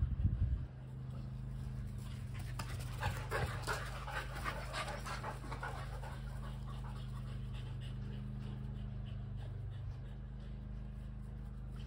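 A dog panting quickly, close by and loudest a few seconds in, after running after a ball. A steady low hum runs underneath, with a few low thumps at the very start.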